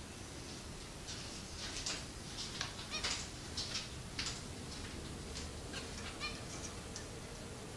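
Pet finches giving a quick run of short, high chirps, busiest in the middle, with a few spaced calls toward the end.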